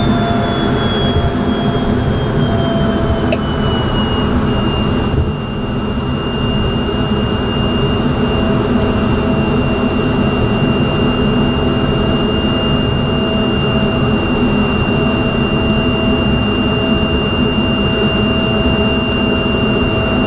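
An F-16 fighter's turbofan engine running, heard inside the cockpit as the jet rolls along the runway. It makes a loud, steady rumble with high whining tones that slide down in pitch over the first few seconds and then hold steady. A single sharp click comes about three seconds in.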